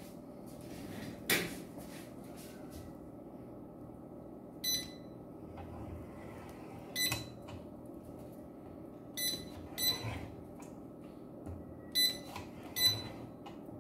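Hand-held inkjet coder giving six short electronic beeps, spread unevenly, some in close pairs, while it prints on a plywood sheet. There is a knock about a second in and a steady low hum underneath.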